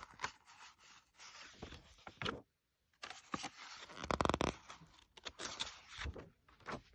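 Paper pages of a picture book being handled and turned: soft intermittent rustles and scrapes, with a louder rasping rustle about four seconds in as a page flips over.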